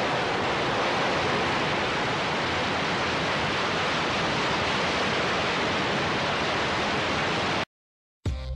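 Rocket engines at liftoff: a steady, even rushing roar that cuts off sharply about three-quarters of a second before the end, followed by a brief silence and then music with drum hits.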